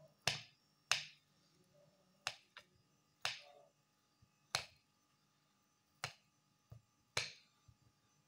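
Small kitchen knife slicing peeled boiled potatoes over a ceramic plate, making about eight sharp clicks at uneven intervals as the blade taps the plate.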